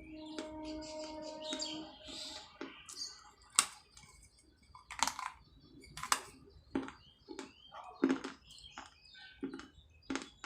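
Baked clay pot pieces being bitten and chewed: a run of sharp, dry crunches, about one a second, starting about three seconds in. A short steady tone is heard in the first two seconds.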